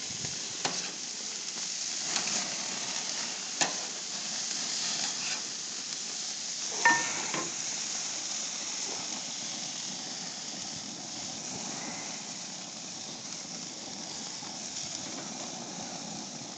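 Hamburger patties sizzling on a barbecue grill, a steady frying hiss, with a few light clicks and one ringing metallic clink about seven seconds in.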